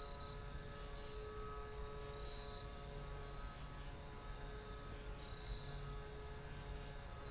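Steady drone of a distant engine, a hum of several even tones over a low rumble.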